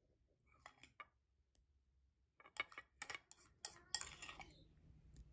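Metal spoon clinking and scraping against a ceramic bowl while spooning out pomegranate paste. A few light clicks in the first second, then a quick run of sharper clinks about two and a half to four seconds in, ending in a short scrape.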